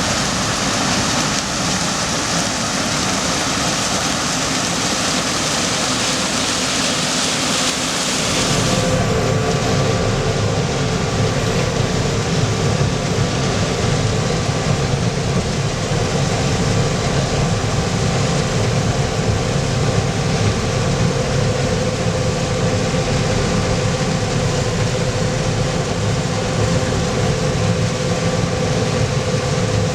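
Heavy farm machinery running steadily. About nine seconds in, the sound changes abruptly from a hissing rush to a deeper engine drone with a steady hum.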